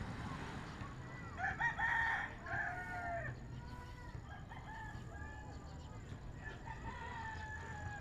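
A rooster crowing loudly, from about one to three seconds in, then a fainter, drawn-out call near the end.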